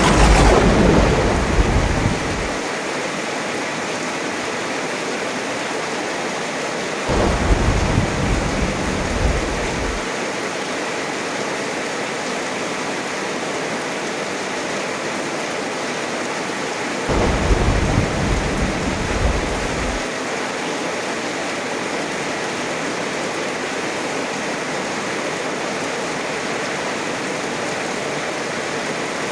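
Heavy rain falling steadily, with three rolls of thunder: a sharp crack at the start that rumbles away over a couple of seconds, then lower rumbles about seven and about seventeen seconds in.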